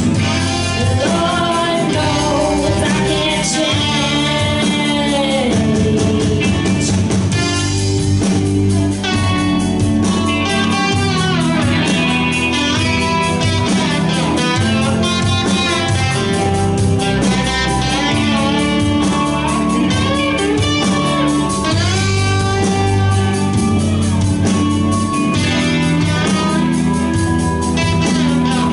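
Rock band playing live: electric guitars and bass, with singing.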